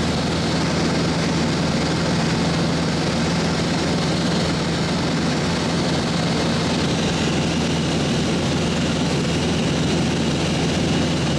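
Cessna 172's single piston engine and propeller running steadily in cruise, heard from inside the cabin as an even drone with a low hum and rushing airflow noise.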